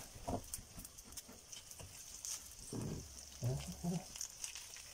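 Warm olive oil sizzling gently in a non-stick frying pan as whole prawns are laid into it by hand, with small clicks and taps as the shells go down. A short low voice murmur comes about three seconds in.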